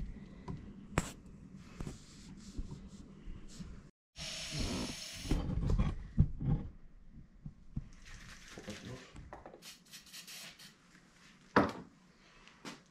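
Handling noise from work on a shotgun's wooden buttstock: scattered small clicks and knocks of the tool and gun parts, a loud rustling burst about four seconds in, and one sharp knock near the end.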